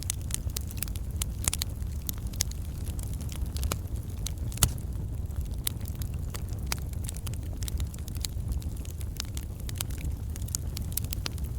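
Wood campfire burning: a steady low rumble under frequent sharp crackles and pops from the burning logs, with one louder pop about four and a half seconds in.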